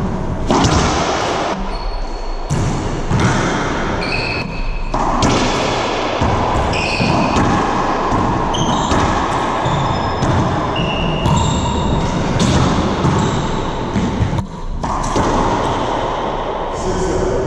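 Racquetball rally in an enclosed court: repeated sharp smacks of the ball off racquets and walls, echoing strongly, with short high squeaks of sneakers on the hardwood floor.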